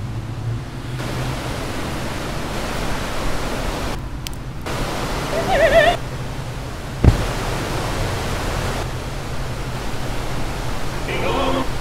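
A steady bed of hissing ambient noise over a low hum, changing in layers. Partway through, a wavering tone swells briefly and is followed by a single sharp thump; another short wavering tone comes near the end.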